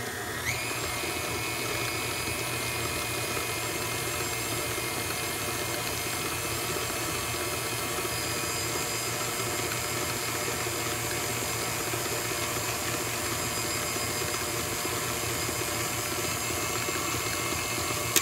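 Electric mixer beating shortening: the motor starts with a short rising whine, runs steadily at one speed, and cuts off at the very end.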